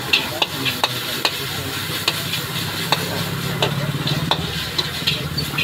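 Metal spatula scraping and clinking against a large wok as shredded cabbage and onion are stir-fried, with frying sizzle underneath. The clinks come irregularly, about twice a second, over a low steady hum.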